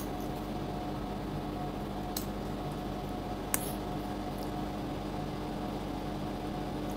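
A metal fork tapping and scraping on a ceramic plate while cutting ripe mango, giving a few sharp clicks, the loudest about halfway through, with eating sounds as a mango slice goes into the mouth. A steady hum runs underneath.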